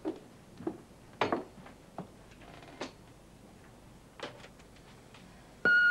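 Footsteps of high heels on a wooden floor, followed by a few scattered knocks and clicks. Near the end an answering machine gives a single electronic beep lasting about half a second, as message playback starts.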